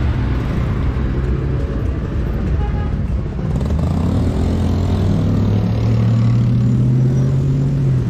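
Road traffic: a motor vehicle's engine running close by with a low hum that slowly rises in pitch over the second half as it speeds up.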